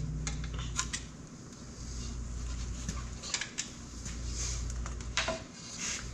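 Scattered light metallic clinks and taps of tools and loose engine parts being handled during a diesel engine teardown, over a steady low hum.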